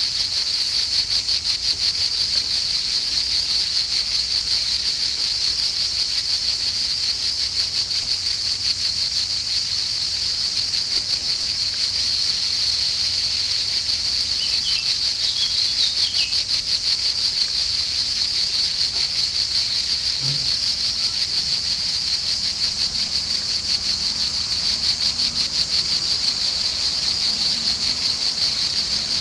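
Cicadas singing in a dense, unbroken chorus: a high, steady buzz with a fast pulse.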